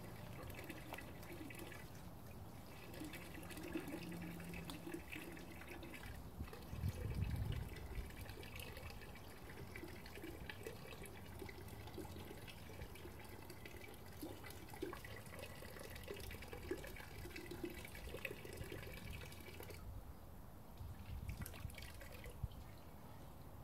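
Water running and splashing out of a homemade hydraulic ram pump's valve into a barrel, with a few low knocks, the strongest about seven seconds in. The pump is not kicking over on its own.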